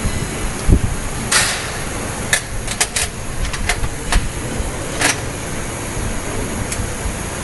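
Scattered sharp metallic clicks and taps, about eight in the first five seconds, from a hex key and small parts knocking against the metal fixture of a screen printing machine, over a steady loud background rush.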